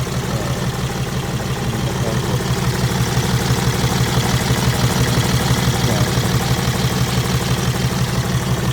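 BMW X6 engine idling with a steady, fast pulsing beat, getting slightly louder about three seconds in. The owner puts the engine's misfires down to faulty injectors.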